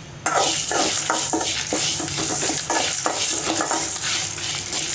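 A spoon stirs and scrapes dry lentils, dried red chillies and curry leaves around the bottom of an aluminium kadai, dry-roasting them without oil. It is a dense, continuous run of scraping strokes, starting about a third of a second in.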